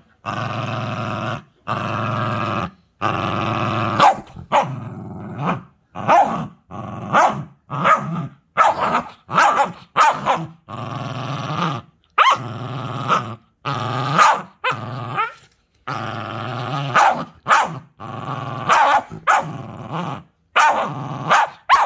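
Small white dog growling in play with a plush toy clamped in its mouth: a run of growls, each about a second long, broken by short pauses for breath, with a few sharper snarls among them.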